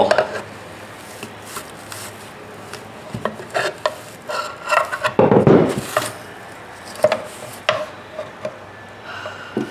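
A long flat-blade screwdriver scraping and prying in the cut seam of a Honda EU2000i generator's sheet-steel muffler, with scattered metal scrapes and clicks. About five seconds in there is a louder rasp as the cut half is levered open.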